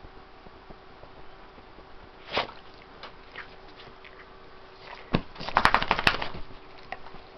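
Rustling and clicking as a Staffordshire bull terrier scrambles up and moves about on a quilted bedspread. There is a soft knock about two seconds in, a sharp click about five seconds in, and then a dense burst of rustling and clicks lasting about a second, which is the loudest part.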